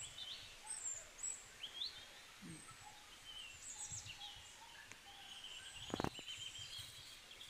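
Small birds chirping faintly in the background, many short high chirps and quick rising and falling notes. One brief sharp knock about six seconds in is the loudest sound.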